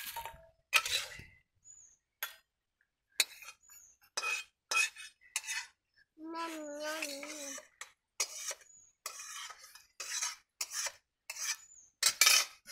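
Steel ladle scraping and clinking against a steel wok, bowls and plates as food is served out: a string of sharp metallic clinks and taps. About six seconds in, a wavering call lasting over a second.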